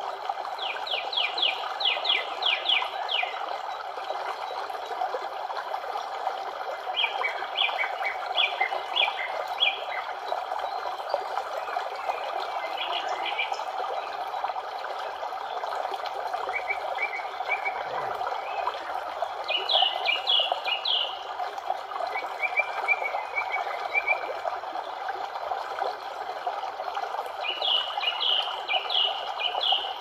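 A bird singing short phrases of quick repeated high notes, one every few seconds, over the steady rush of running water.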